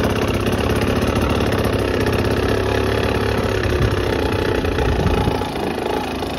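Two-stroke dirt bike engine, fitted with a heavy flywheel weight (traction disc), running steadily as the bike is ridden.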